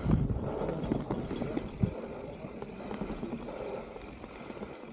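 A mountain bike crash in mud: a heavy thump right at the start and another about two seconds in, then rattling and scuffing of the bike and rider on the ground.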